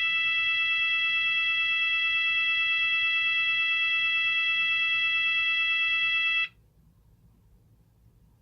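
Cooper MIN-T electronic fire alarm sounder giving one long steady blast at a single pitch, which cuts off abruptly about six and a half seconds in. This tone pattern has long blasts with long silences between them.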